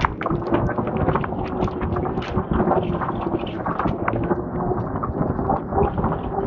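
Wind buffeting the microphone and tyre rumble from a Revolt RV400 electric motorcycle riding along a concrete lane, with a faint steady hum for most of it.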